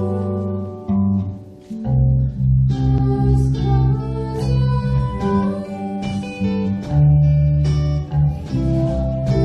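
Live band playing a pop song: acoustic guitar over bass and drums, with a girl singing. The music dips briefly about one and a half seconds in, then comes back in full.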